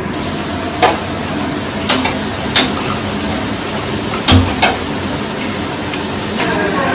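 Food sizzling in a steel wok on a gas stove, with several sharp metallic clinks as a metal spatula and a small steel cup knock against the pan while spice is added and stirred in.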